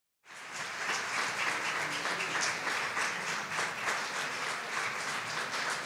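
Audience applauding. It cuts in abruptly just after the start, then holds as a steady, dense clapping.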